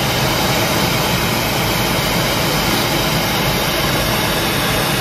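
Steady rush of air flowing over a Duo Discus glider's canopy and fuselage in flight, heard from inside the cockpit. It is pure wind noise with no engine, as the glider has none.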